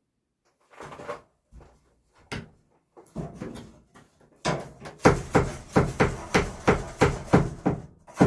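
Hammer blows on wood: a few scattered knocks, then from about five seconds in a steady run of strikes at roughly three a second, the loudest part, as the 2x3 lumber of the frame is driven into place.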